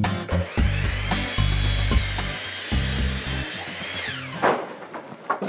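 A power saw spinning up, running through wood with a steady whine and hiss, then winding down about four seconds in, over closing music with a deep bass line. A few short knocks follow near the end.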